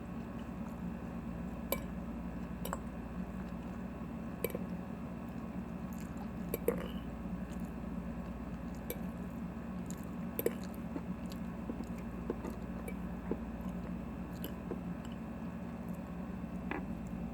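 Close-up chewing of a crunchy chopped kale salad, with scattered crisp crunches and clicks every second or two. A steady low hum runs underneath.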